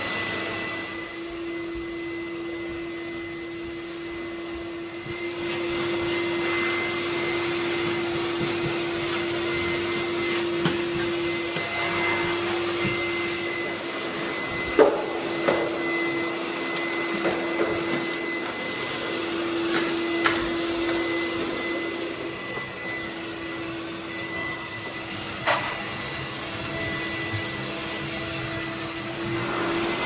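Pacvac backpack vacuum cleaner running with a steady motor whine while vacuuming, with a few sharp knocks along the way.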